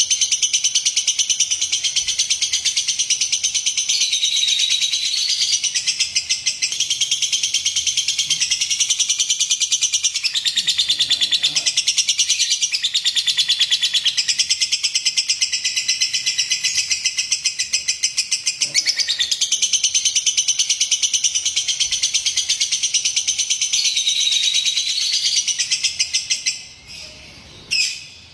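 Lovebird chattering in a long, unbroken run of very rapid high-pitched chirps. Near the end it breaks off into a few short bursts.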